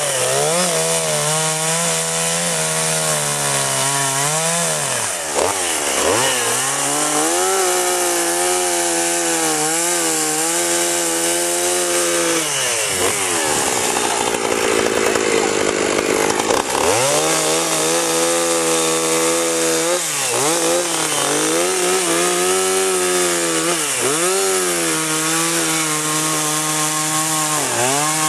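Two-stroke gas chainsaw running continuously while carving into a block of wood. The engine note sags and recovers several times as the chain is pushed into the wood and eased off. Midway it turns rougher and noisier for a few seconds.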